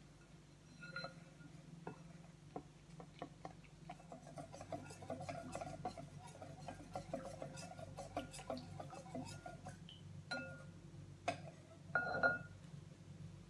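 Wire whisk beating thin lumpia-wrapper batter in a glass mixing bowl: rapid clicking and ticking of the wires against the glass, busiest in the middle. Now and then a knock makes the glass bowl ring, loudest near the end.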